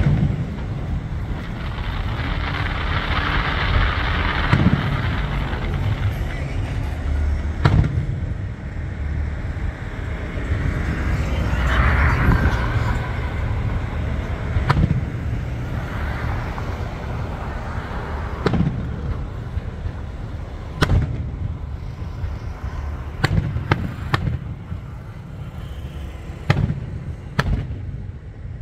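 Aerial firework shells bursting one after another, about ten sharp bangs a few seconds apart. A steady rush of noise runs between the bangs.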